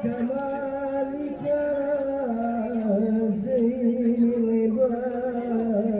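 Voices singing a slow melody, holding long notes that step from pitch to pitch, with more than one voice together.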